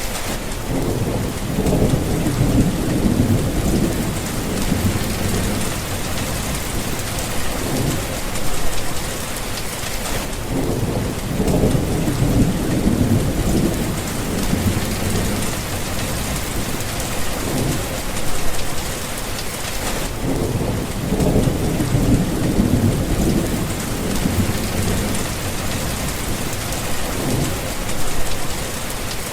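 Steady rain pouring, with low rolling thunder rumbling up three times, about ten seconds apart.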